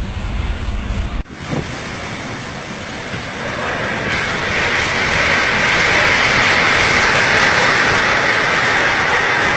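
Storm wind rushing in a steady loud hiss. It starts with a low rumble, likely wind buffeting the microphone, that cuts off about a second in, then swells after a few seconds and holds.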